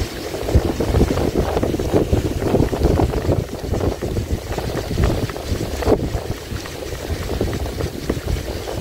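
Wind buffeting the microphone out on the water, an irregular, gusty low rumble with no steady engine tone, and a short tick about six seconds in.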